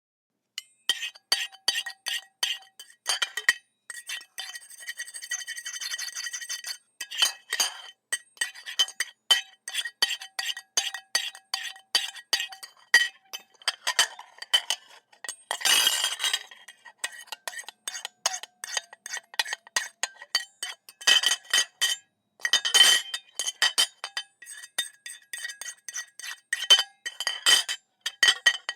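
A metal fork scraping and scratching across a ceramic plate in many short strokes, the plate ringing with a few clear tones after each stroke. A few longer, drawn-out scrapes are mixed in, the noisiest a little past halfway.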